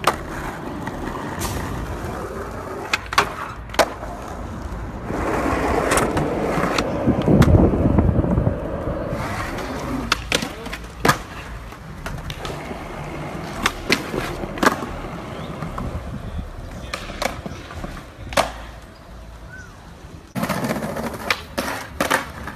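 Skateboard wheels rolling on concrete and asphalt, broken by sharp clacks of the board's tail popping and the deck landing, a dozen or so spread through several short trick clips. There is a louder rolling rumble in the middle.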